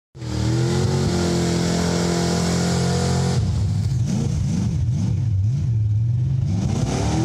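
Lifted full-size truck's engine running hard at high revs as it drives through a deep mud hole. About three and a half seconds in, the revs start bouncing rapidly up and down, then climb steadily again near the end.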